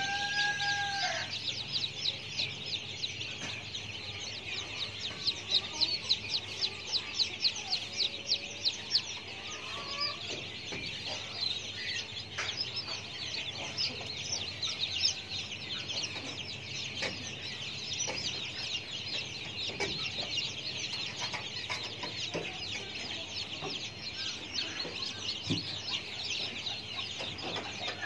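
Chickens clucking, over a steady, dense chorus of rapid high chirps.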